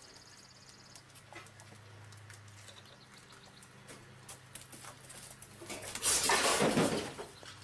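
Faint small clicks and taps of a cat eating from a small bowl. About six seconds in, a louder breathy rush of noise lasts just over a second.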